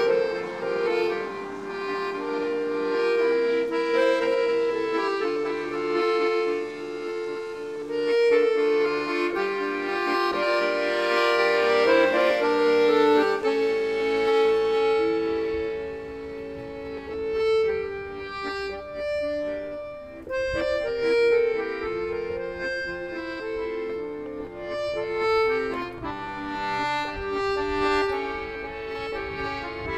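Accordion music: a melody played over sustained held chords.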